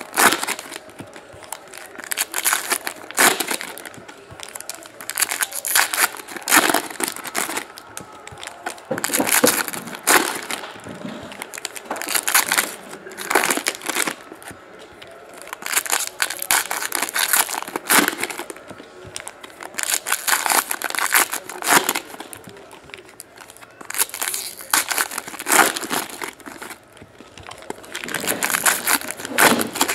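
Foil wrappers of Prizm football card packs being torn open and crinkled by hand, in repeated crackling bursts every second or two.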